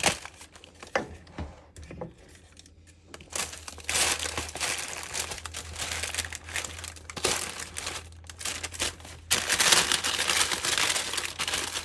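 Wax paper lining a cardboard graham cracker box crinkling and rustling as sticky fruit cake mixture is packed into it. A few light clicks come first, then the crinkling grows dense about three seconds in and louder again near the end.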